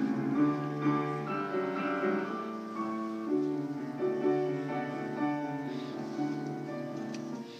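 A large mixed choir singing slow, long-held chords with piano accompaniment.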